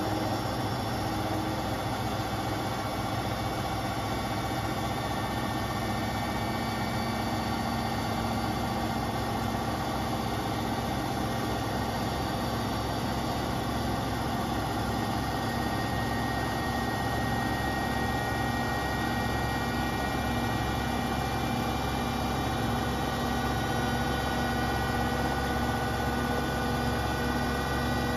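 Beko WTK74011W front-loading washing machine spinning its drum at speed on a spin-and-drain cycle: a steady motor whine and drum hum with several held tones, and a low pulsing hum from about three seconds in.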